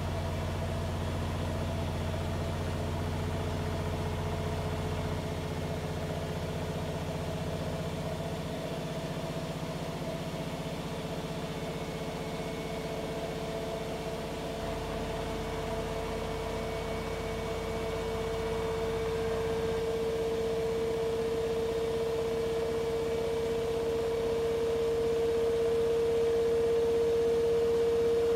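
Siemens iQ500 front-loading washing machine (WM12T80TR, 9 kg, 1200 rpm) spinning. Its steady whine rises slightly in pitch and grows louder toward the end as the drum speeds up. It is presented as the sound of a healthy machine, free of the knocking of worn shock absorbers or the helicopter-like noise of failing bearings.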